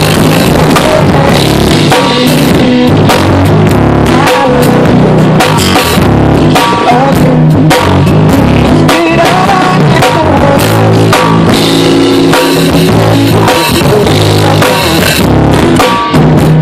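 A live rock band playing loudly, with a drum kit hitting steadily over bass and guitar.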